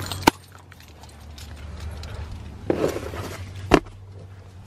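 Handling noise: a sharp knock just after the start, a short rustle a little before three seconds, and a second sharp knock near the end, over a low steady hum.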